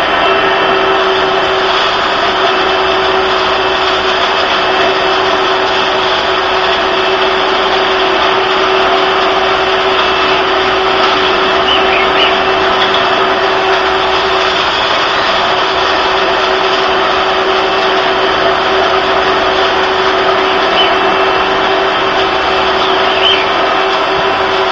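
Household vacuum cleaner running steadily: a constant loud drone with a steady whine.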